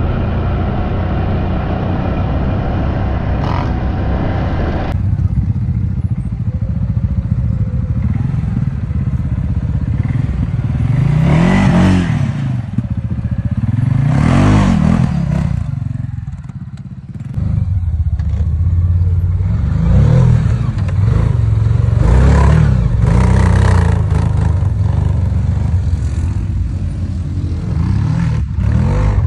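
Quad bike (ATV) engines on sand. For the first few seconds an engine runs steadily while riding; then quads rev up and ease off again and again as they climb steep sand hills, each climb a rising and falling swell of engine noise.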